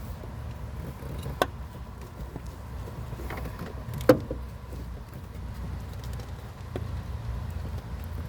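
A few sharp clicks and knocks of engine-bay parts being handled while hoses are refitted, the loudest about four seconds in, over a steady low background rumble.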